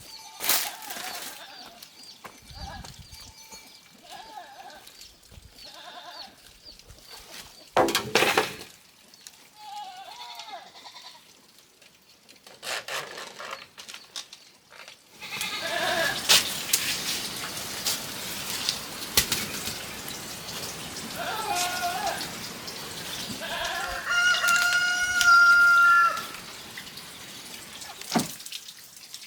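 Farm animals calling: goats bleating in short wavering calls early on, then a rooster crowing with one held call near the end, over a steady rushing noise in the second half.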